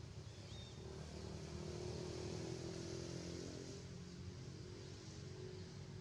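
A motor vehicle engine running steadily in the background, growing louder about a second in and fading again after the middle, as if passing by.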